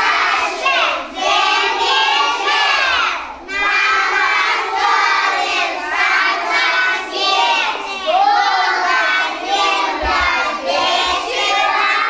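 A group of young children singing together in chorus.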